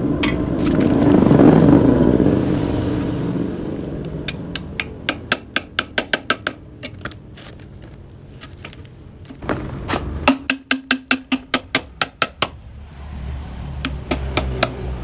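A passing vehicle swells and fades. Then come two runs of rapid sharp blows, about five a second, as the baffles inside a Yamaha RX-King exhaust are knocked out ('bobok'), the second run over a steady hum.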